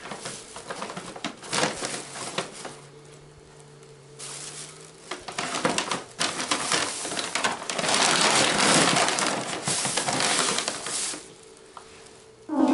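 Plastic bags crinkling and rustling as they are handled and rummaged through, in uneven rustles that are loudest from about halfway to near the end. A faint steady hum sits underneath.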